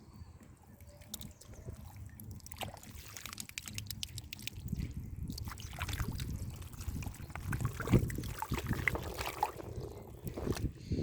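Shallow muddy water sloshing and splashing unevenly with scattered small knocks, as hands work through it; the loudest splash or thump comes about eight seconds in.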